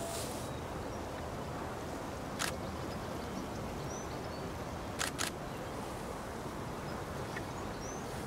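Steady open-air background noise with faint bird chirps, broken by three sharp clicks: one about two and a half seconds in, then two in quick succession about five seconds in.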